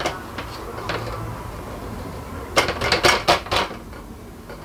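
Hard plastic shoe-rack shelf piece being snapped onto steel poles: a few light clicks, then a quick run of about five sharp clacks and snaps about two and a half seconds in.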